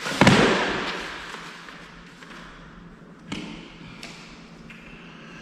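Two knocks of hard objects being handled: a loud thud just after the start that rings out for most of a second, and a lighter knock about three seconds in.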